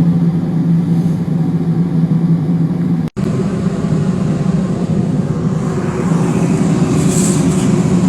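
A steady motor drone with a low hum. It cuts out for an instant about three seconds in, then resumes.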